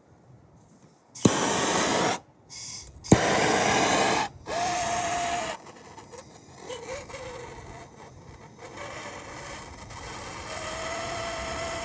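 MAP gas torch being lit and run: a sharp click of the igniter followed by a loud hiss of gas, repeated in short bursts over the first few seconds. It then settles into a quieter steady hiss with a faint steady tone as it heats the battery cable end for soldering.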